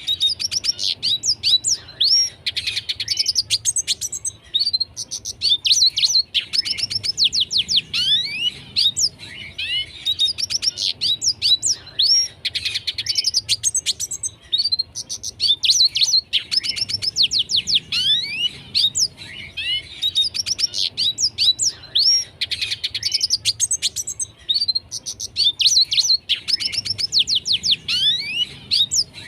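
Red siskin in full, non-stop song: phrase after phrase of fast twittering chirps, trills and quick sweeping notes, with brief pauses every couple of seconds.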